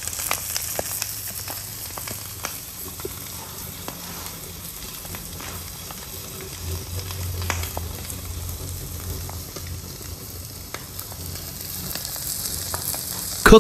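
An egg sizzling as it fries in a wok: a steady hiss with scattered faint pops.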